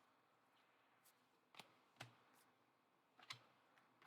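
Near silence broken by a handful of faint, short clicks and taps from trading cards being handled.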